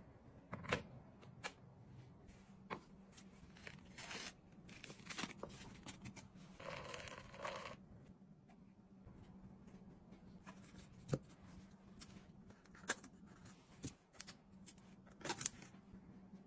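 Light handling of paper cups, lids and drip-coffee bags: scattered clicks and taps with short bursts of paper rustling, one lasting about a second near the middle, over a faint steady low hum.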